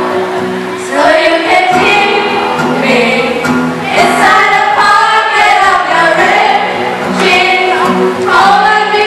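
A group of young voices singing together, led by a girl singing into a microphone through a PA.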